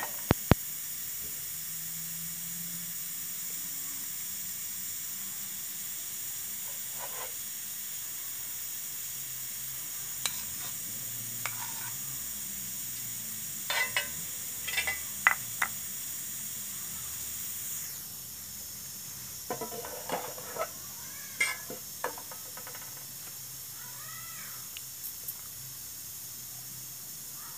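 Hot oil and then beaten egg sizzling steadily in a wok-style pan, with a metal spoon clicking and scraping against the pan as the egg is stirred. The sizzle drops in level a little over halfway through.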